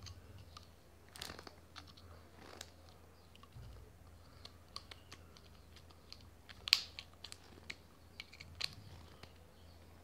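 Pliers gripping, twisting and scraping at the metal cap of a dry cell battery to pull out its carbon rod: faint scattered clicks and small crunches, with one sharper click about two-thirds of the way through.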